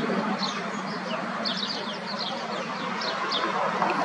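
Small birds chirping in quick, repeated high, down-sweeping chirps, several a second, over a steady background rush of noise.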